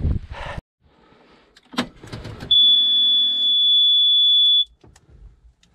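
A JCB machine's cab warning buzzer gives one steady high-pitched beep lasting about two seconds, the alarm that sounds with the ignition switched on before the engine is started. A sharp knock comes shortly before it.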